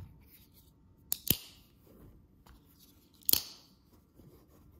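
Sharp metallic clicks as folding knives are handled and moved: a quick double click about a second in, and another about two seconds later.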